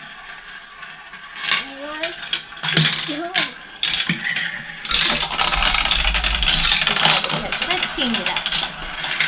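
Marbles rolling and clattering through a plastic Galt marble run: rattling around the spiral bowl and along the twisting tracks. About five seconds in, a louder burst of clattering lasts two or three seconds.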